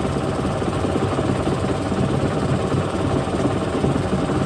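Samsung washing machine running with heavy bricks inside its drum, a loud, steady rumble with dense, irregular rattling and knocking.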